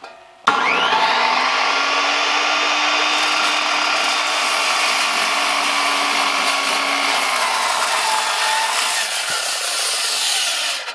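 Skilsaw 10-1/4" worm drive circular saw with a 40-tooth carbide blade spinning up about half a second in, then cutting steadily through a large timber for about ten seconds before stopping abruptly near the end.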